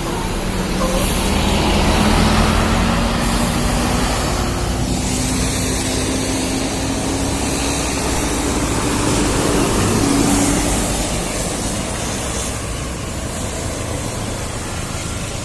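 Bus engine pulling away, its pitch rising slowly for about ten seconds, over a loud steady rushing noise.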